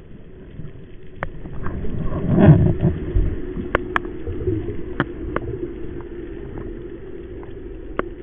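Underwater sound through a camera housing mounted on a speargun: a muffled low rush of water that swells about two and a half seconds in, with a few scattered sharp clicks.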